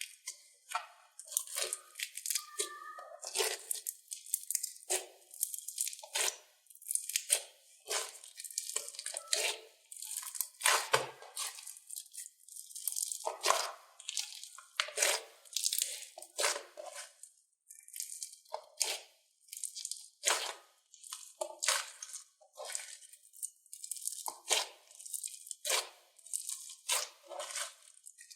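Slime being squeezed and pressed by hand, giving short crackling crunches one to two a second.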